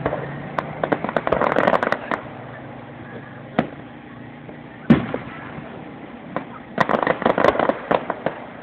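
Aerial fireworks bursting overhead. Two runs of rapid sharp pops come near the start and again near the end, with two single louder bangs between them, the louder one about five seconds in.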